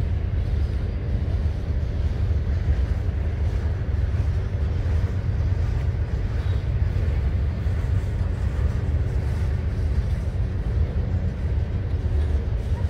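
Freight train of covered hopper and tank cars rolling past, a steady low rumble of steel wheels on the rails.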